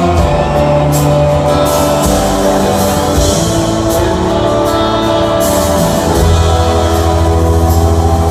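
Live rock band playing, with guitar, drums and singing over held chords.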